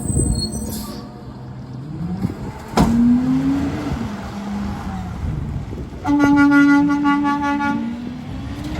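Garbage truck engine running and rising in revs, with a sharp knock about three seconds in, then a vehicle horn blowing one steady note for about two seconds near the end.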